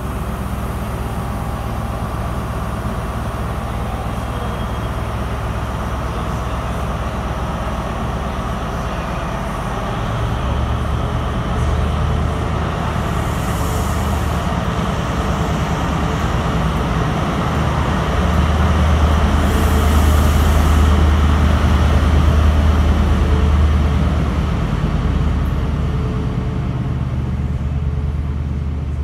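Class 43 HST power car's diesel engine running, a steady low drone that grows louder about a third of the way in, is loudest past the middle, then eases off. Two short hisses sound in the middle.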